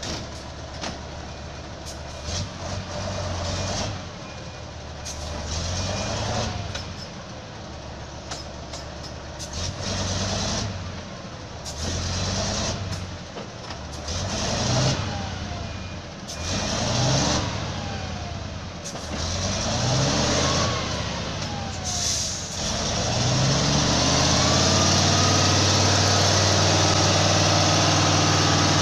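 Loaded logging truck's diesel engine revving hard and dropping back, again and again, about every two to three seconds, as it works to pull out of deep mud. Near the end it holds a steady high rev as the truck gets moving.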